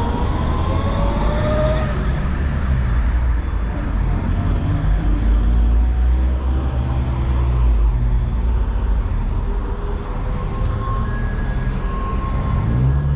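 City road traffic: the steady low rumble of cars and buses driving past, with a rising engine whine as a vehicle accelerates in the first couple of seconds.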